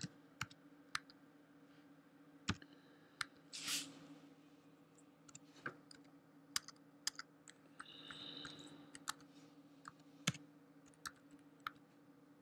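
Computer keyboard keys pressed one at a time while numbers are typed in: slow, irregular clicks of single keystrokes. A faint steady hum runs underneath.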